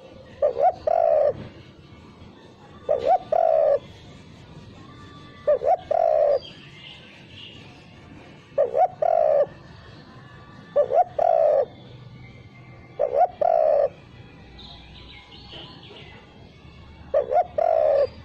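Spotted dove cooing: seven phrases, each a couple of quick notes and then a longer coo, repeated every two to three seconds. The phrases are sung without the closing "kuk" note.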